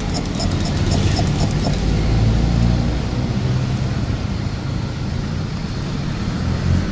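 Oil sizzling in a wide pan of deep-frying fish balls and squid balls, under a steady low rumble of a road vehicle's engine that is the loudest sound, strongest a couple of seconds in. A rapid high ticking runs through the first two seconds.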